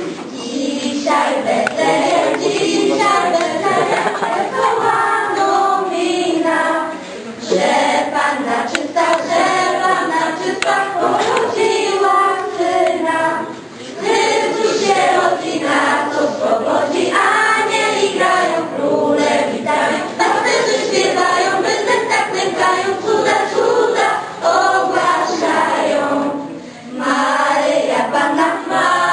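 Children's choir singing a Polish Christmas carol (kolęda), with brief pauses for breath between phrases.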